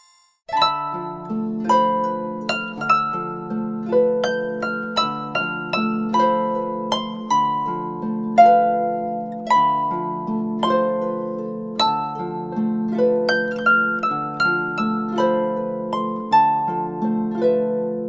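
A Samsung Galaxy S4 phone tone playing: a harp-like plucked melody over a slow, repeating low accompaniment, starting about half a second in.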